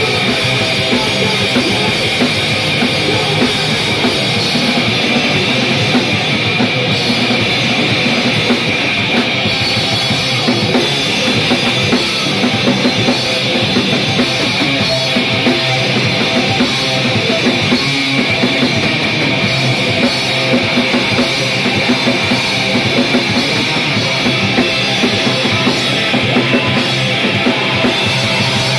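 Loud live hardcore punk from a guitar-and-drums duo: distorted electric guitar over dense, continuous drumming on a full drum kit.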